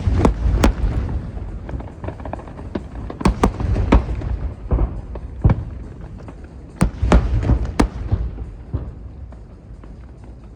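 Aerial fireworks shells bursting: sharp cracks and bangs come in clusters, near the start, about three seconds in and about seven seconds in, over a continuous low rumble of distant booms. They thin out toward the end.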